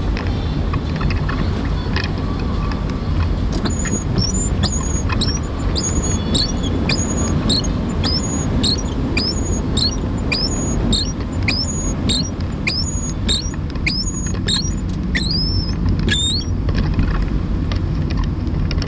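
Car windscreen wipers squealing, a short high squeak on each stroke nearly twice a second, starting a few seconds in and stopping a couple of seconds before the end. Under it runs the car's steady low road rumble and tyre noise through water lying on the road.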